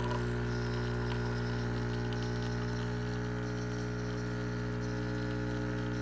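Mr. Coffee 19-bar pump espresso machine brewing: its pump runs with a steady, even hum as it pushes water through the coffee.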